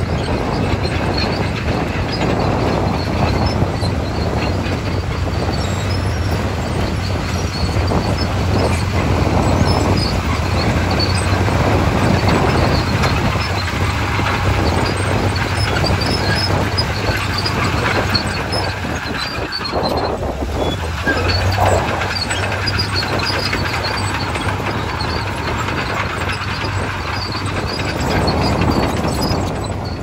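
Komatsu crawler bulldozer's diesel engine running steadily while it pushes soil, its steel tracks clanking and squeaking throughout.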